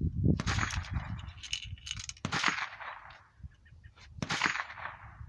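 Gunfire on a shooting range: several sharp rifle shots about two seconds apart, each with a short echoing tail, with lighter metallic clicks between them.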